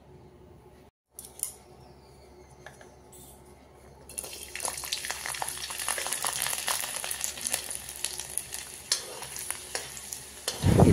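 Garlic cloves frying in hot mustard oil in a kadai, a dense crackling sizzle that starts about four seconds in and keeps on, with a steel spoon stirring in the pan. Before the sizzle there are only a few faint clicks.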